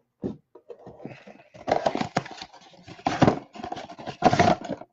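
Trading-card packs being handled and set down on a table: a run of irregular soft knocks with rustling in between, the loudest hits about two, three and four seconds in.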